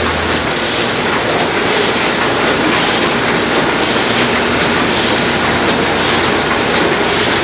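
Oliver 66 semi-automatic offset printing press running, a loud, steady mechanical clatter.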